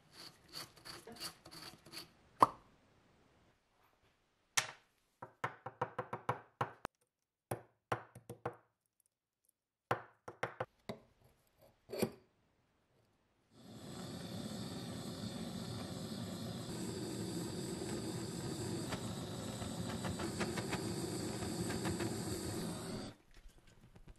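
A run of short clicks and taps, metal handled against a vise, the sharpest about two seconds in. Then a gas torch hisses steadily for about nine seconds, heating the metal bottle, and cuts off suddenly.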